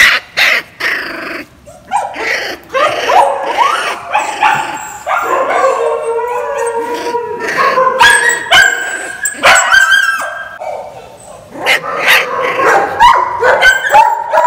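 A litter of 15-day-old Kombai puppies whining and yelping as they are handled: a continuous run of short, high cries that slide up and down in pitch and overlap one another.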